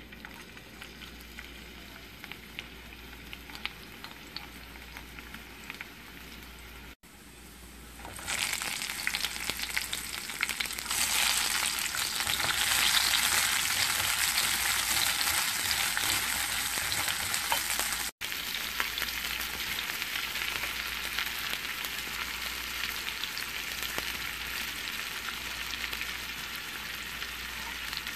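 Food frying in oil in a frying pan: a gentle sizzle of minced garlic at first, growing much louder about eight seconds in as chopped onion fries and is stirred, then a steady sizzle as sliced vegetables cook. The sound breaks off for an instant twice.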